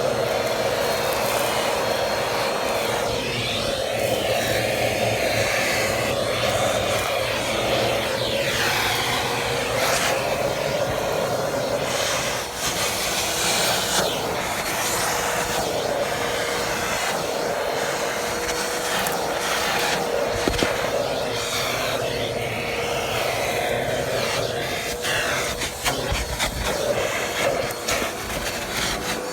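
Vacuum cleaner running while a car is vacuumed: a steady motor whine over the rush of suction, the airflow sound shifting and sweeping from moment to moment as the nozzle moves.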